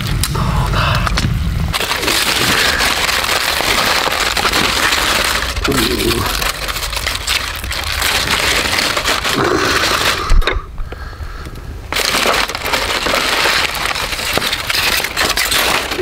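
Aluminium foil crinkling and tearing as it is peeled open by hand from a thick rested steak, with a short pause about ten seconds in.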